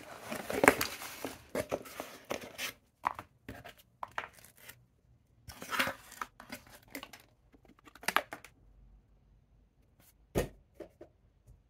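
Cardboard mailer box being torn open and unpacked: paper and plastic packaging rustling and crinkling in irregular spurts, busiest in the first few seconds and then more sparse, with a single knock near the end as something is set down on the desk.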